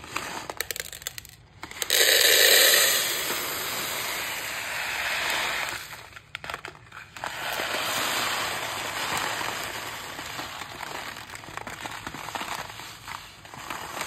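Dried yellow lentils pouring from a plastic packet into a plastic storage container: a steady, grainy rattling hiss of grains. It pauses briefly about six seconds in, then resumes.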